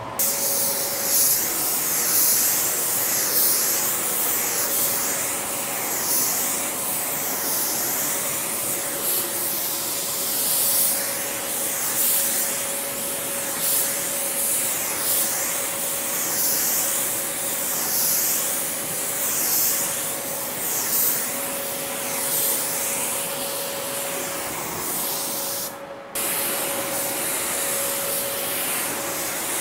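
Gravity-feed automotive paint spray gun hissing as it lays down base coat, the hiss swelling and fading about once a second. A brief break near the end. A faint steady hum underneath.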